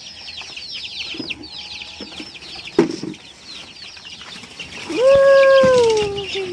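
A flock of young white chicks in a coop peeping rapidly and continuously, each peep a quick falling chirp. A sharp knock comes just before three seconds in. From about five seconds in, a loud, drawn-out call slowly falls in pitch.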